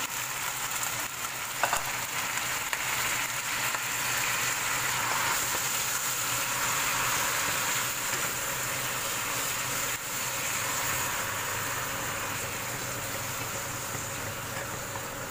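Bok choy sizzling in hot oil with fried garlic in a nonstick pan as it is stirred with a wooden spatula. There is one sharp knock a couple of seconds in, and the sizzle eases slightly after about ten seconds.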